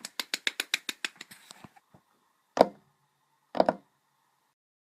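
Brief clapping by one or two people, about seven claps a second, dying away within two seconds, then two single louder knocks about a second apart, the second one doubled.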